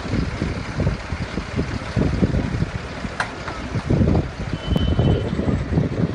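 Rail-road vehicle (truck running on rail guide wheels) moving along the track with a loud, uneven low rumble, and a high beeping alarm sounding twice: once for under a second about four and a half seconds in, and again near the end.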